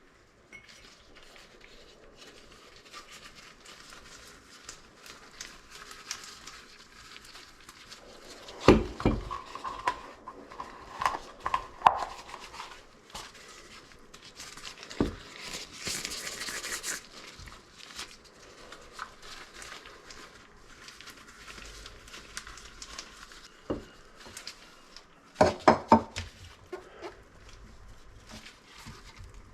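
Scattered knocks, clicks and clatter of tools and plumbing parts being handled at a kitchen sink, with heavier knocks about a third of the way in and again near the end and a short hissing rush around the middle.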